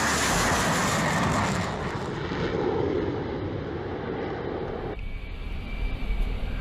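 Loud jet noise of an F-15 Eagle's twin turbofan engines as it flies past, fading to a lower rumble as the jet climbs away. About five seconds in the sound changes abruptly to a quieter steady high whine over a low rumble.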